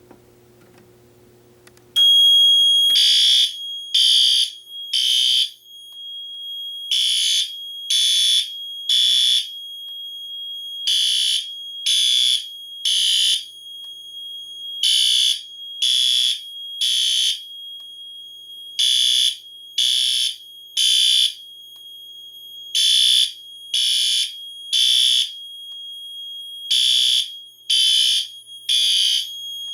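Fire alarm horns sounding in temporal code 3: three blasts about a second apart, a short pause, then again, over and over. The alarm is set off from a System Sensor i3 smoke detector and starts about two seconds in. A steady high-pitched tone sounds underneath the whole time.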